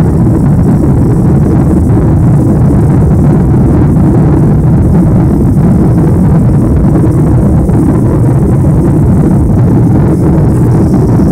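Steady, deep cabin noise of a Boeing 747 climbing after takeoff: its four turbofan engines and the rushing air, heard from inside the passenger cabin.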